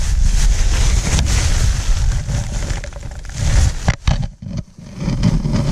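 Camera microphone rubbed and jostled against nylon sleeping bags and gear, a loud, irregular rustling with a deep rumble that eases for a moment about four seconds in.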